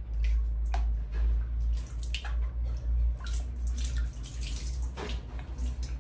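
Water splashing and sloshing irregularly in a plastic tub as a baby monkey swims and paddles through it, over a steady low rumble.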